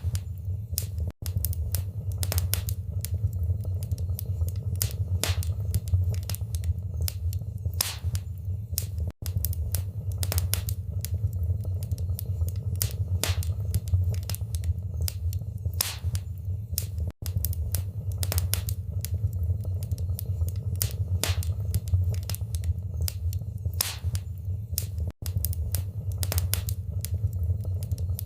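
Wood fire in a fireplace crackling, with frequent sharp pops over a steady low rumble. The sound cuts out for an instant about every eight seconds.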